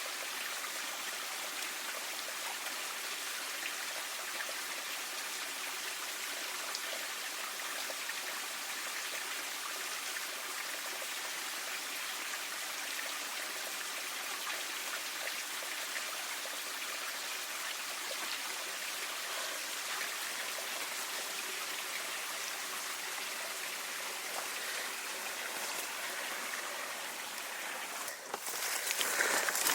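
Stream water running steadily. Just before the end, a louder rustling starts over it.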